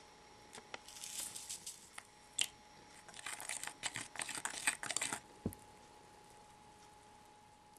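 Crinkling of a foil powder packet being emptied into a small plastic cup, then a plastic spoon stirring and scraping the cheese powder and water mix in quick clicky scrapes. A single dull thump comes about five and a half seconds in, over a faint steady hum.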